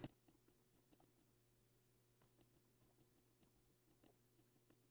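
Near silence: a faint steady low hum with a scattering of very faint computer mouse clicks.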